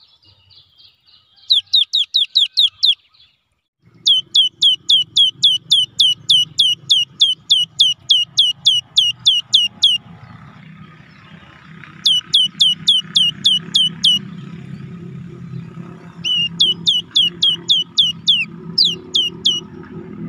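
Cinereous tit (gelatik batu) singing: runs of sharp, downward-sweeping whistled notes, about three to four a second, in four bursts lasting one to six seconds. A low engine rumble comes in about four seconds in and grows louder toward the end.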